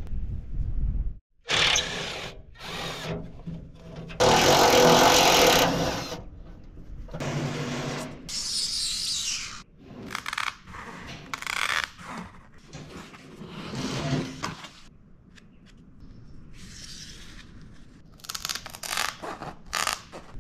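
Power tool work in short separate bursts, the loudest a steady run of about two seconds, with shorter bursts of tool and handling noise before and after.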